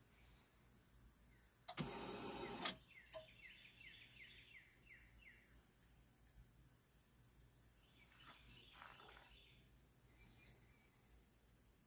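Near silence with faint background hiss. A bird sings a quick run of short falling chirps a few seconds in, with more faint chirps later. A brief burst of noise, about a second long, comes just before the birdsong and is the loudest sound.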